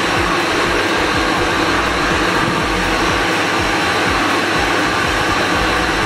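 Shark upright vacuum cleaner running steadily: an even motor-and-airflow noise.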